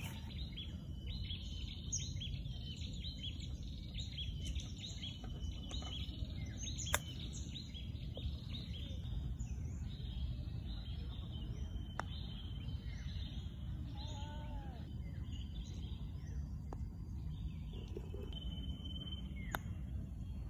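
Many small birds chirping and calling over a steady low rumble of outdoor background noise, with a few sharp clicks, the loudest about a third of the way through.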